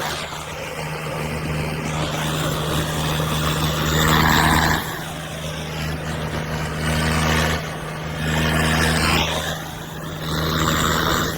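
Tractor's diesel engine running steadily while driving on the road, with several louder swells along the way.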